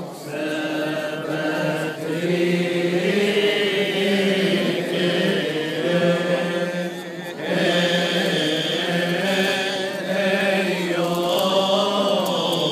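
A group of men's voices chanting a Coptic Orthodox liturgical hymn in unison, with a short break between phrases about seven seconds in.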